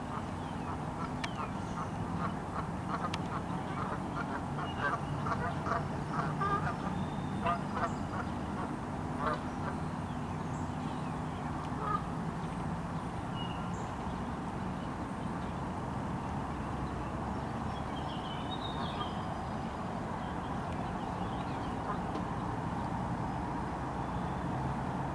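Canada geese honking, a run of short repeated calls over roughly the first nine seconds that then dies away. A steady low hum runs underneath.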